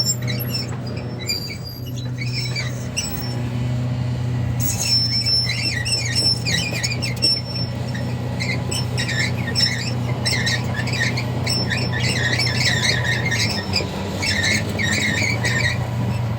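Hitachi ZX450LC-3 excavator's diesel engine running steadily, with repeated short high-pitched squeaks over it from about five seconds in.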